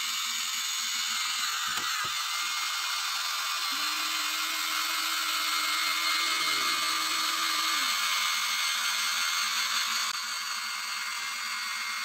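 Electric drive motors and gearboxes of a Huina 1593 RC excavator whirring as it tracks along. A lower, steadier motor tone joins in for a few seconds in the middle.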